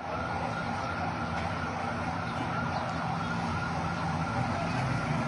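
Steady city street and traffic noise with a continuous high-pitched tone held level over it.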